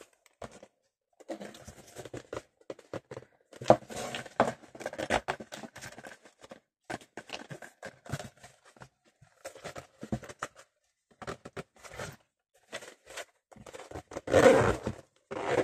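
A zipper on a handmade paper-covered vanity case being slid along to test it, rasping and scratching in irregular spurts with rustles of handling, loudest near the end. The paper it had been catching on has been trimmed back so the slider gets past.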